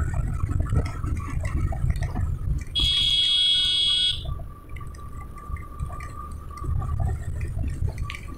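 Wind and engine rumble from a motorcycle riding on a wet road, with a high-pitched horn sounding once for about a second and a half near the middle.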